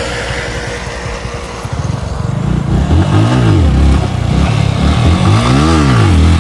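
Motorcycle engine revved up and falling back twice, once about three seconds in and again near the end, over a steady rush of riding noise.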